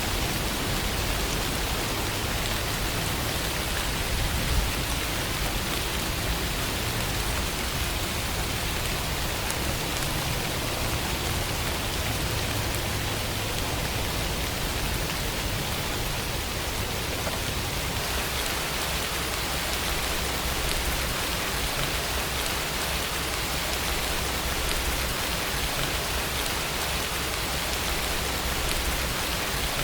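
Steady rain: an even hiss of falling drops with a low rumble underneath, the low part changing slightly about eighteen seconds in.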